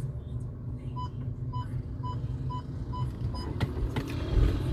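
A car's warning beeper inside the cabin, six short even beeps about two a second over the car's low rumble, then a few clicks and a thump near the end.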